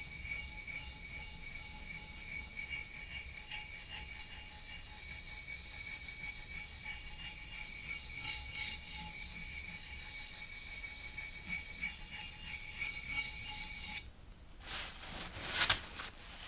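Steel plane iron rubbed back and forth on a wet sharpening stone: a steady scraping rasp that stops about 14 seconds in. Near the end, a rag briefly rustles as the stone is wiped.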